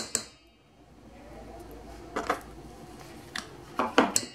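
A spoon clicking and knocking against a stainless steel mixing bowl as butter is scooped and dropped in: two quick clicks at the start, a few lighter ones around two seconds in, and a louder cluster near the end.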